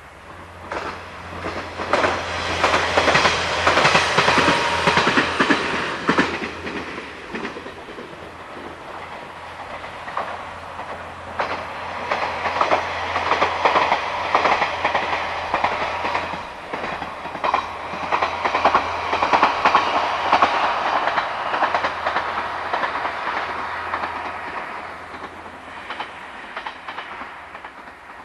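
JR KiHa 40-series diesel railcar train passing, its wheels clacking over the rail joints. It grows loud within about two seconds, eases off for a moment about a third of the way through, swells again and fades away near the end.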